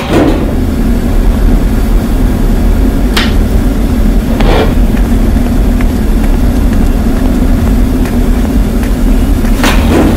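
Loud, steady machine drone with a low hum and rumble, typical of industrial plant machinery. Three short, sharp noisy hits come through it, about three seconds in, a second and a half later, and again near the end.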